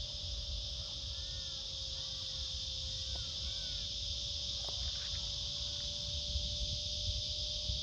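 Steady high-pitched chorus of summer insects, with wind rumbling on the microphone. A few short arching bird chirps come between about one and three and a half seconds in, over a faint steady hum.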